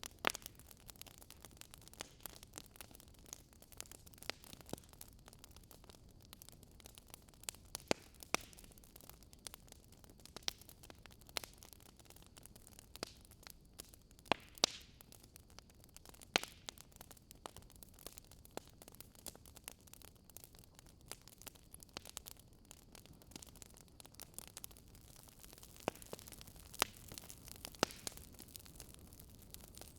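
Fireplace audio of a wood fire crackling: irregular sharp pops and snaps, a few louder ones, over a faint steady hiss.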